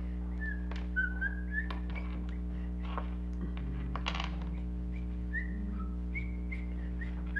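A string of short, high whistled notes that step up and down in pitch, over a steady low electrical hum, with a few light clicks.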